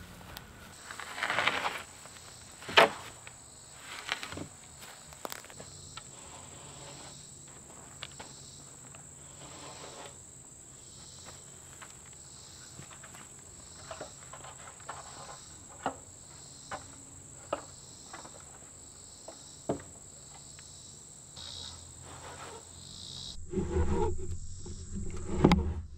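Insects drone steadily in a high, even tone. Over it come scattered wooden knocks and bumps as a lumber board is carried and set against the posts, with one sharp knock about three seconds in. Near the end there is closer handling and rustling of the board.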